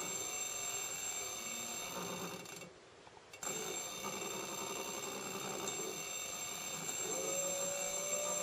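Electric bicycle hub motor spinning on the bench, driven by a Lyen 18-FET controller: a quiet whine of steady high tones. It cuts out briefly about three seconds in, and near the end a clearer whining tone comes in and rises slightly.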